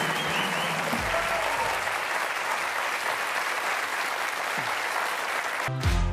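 Studio audience applauding steadily. Near the end, music with a strong bass line starts up.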